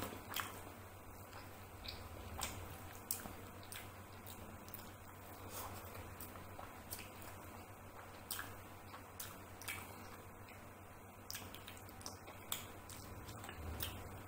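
Close-miked eating of chicken curry and rice by hand: chewing and wet mouth sounds, fingers squishing rice into the curry, and irregular sharp clicks.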